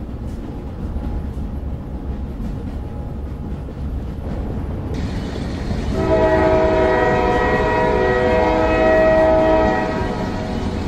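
A low rumble, then a train horn sounding one long chord of several tones about six seconds in, held for about four seconds before it fades.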